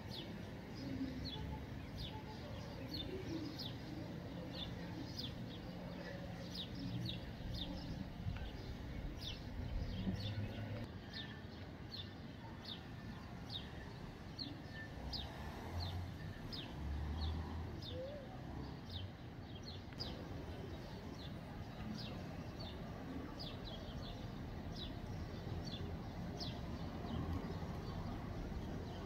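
A bird repeating a short, high, falling call over and over at an even pace, roughly three calls every two seconds, over a low steady outdoor rumble.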